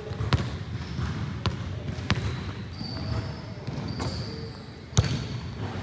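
A basketball bouncing and striking hard surfaces in a gym: a few separate sharp bangs, the loudest about a third of a second in and again at about five seconds, with softer ones between.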